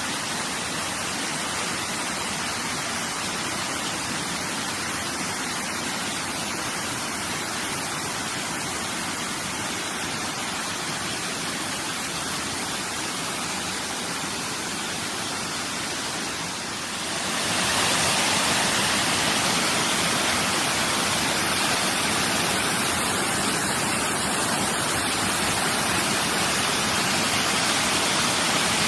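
Rushing water of a rocky stream tumbling over small cascades and boulders, a steady rush that grows louder and brighter about seventeen seconds in.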